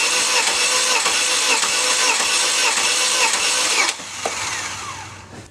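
A 2001 Chevy Cavalier's 2.2-litre four-cylinder engine is cranked over by the starter without firing, for a compression test, with an even pulse about twice a second. The cranking stops a little under four seconds in, and the engine spins down with a falling whine.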